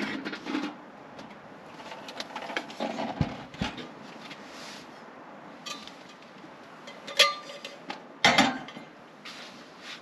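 Cookware and utensils being handled: scattered clinks and knocks, a couple of dull thumps around three seconds in, and two sharper, louder clatters a little past seven and eight seconds in, over a steady background hiss.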